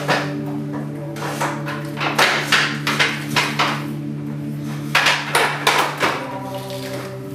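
Blows knocking against the wooden boards and pallets of a sculpture being smashed apart: sharp knocks in quick runs of two to four, over a steady low humming tone.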